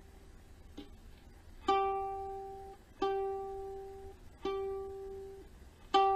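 Kala Ukadelic soprano ukulele: one string plucked four times, each time at the same pitch. Each note rings for about a second and is then damped. This is the plucking done while tuning the new strings, which are still stretching and drifting out of tune.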